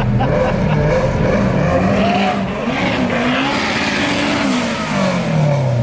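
Drag-racing cars' engines revving and passing, several engine notes rising and falling together; near the end one engine note falls steadily in pitch as a car goes by.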